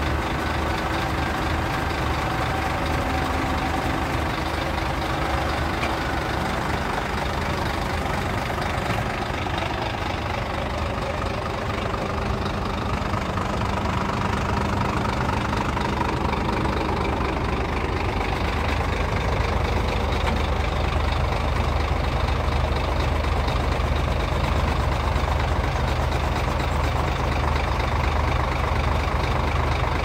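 Heavy diesel engine idling steadily, a continuous low drone that grows a little stronger in the second half.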